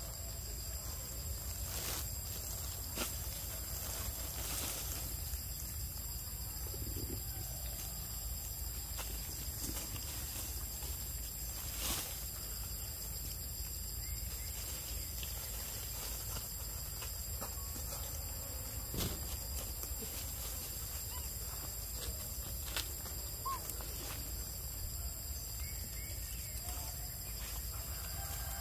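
Forest ambience: insects droning steadily in several high tones over a low rumble, with a few sharp clicks here and there.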